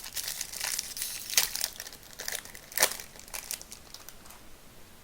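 Plastic wrapper of a Topps Chrome baseball card pack being torn open and crinkled by hand. The crinkling runs for about four seconds, with two sharper, louder crackles partway through, then fades out.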